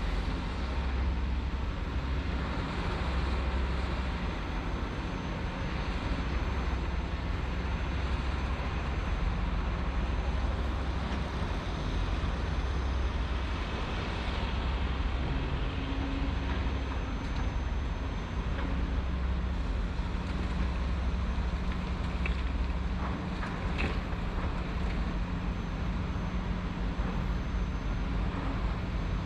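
Heavy diesel construction machinery running steadily with a low engine rumble, and a few faint clicks or clanks near the end.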